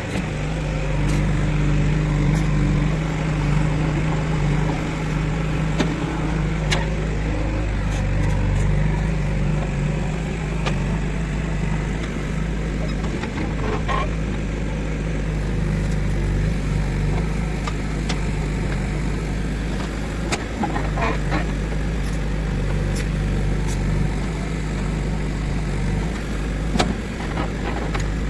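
Diesel engine of a JCB 3DX backhoe loader running steadily as it works, with a few short clanks now and then.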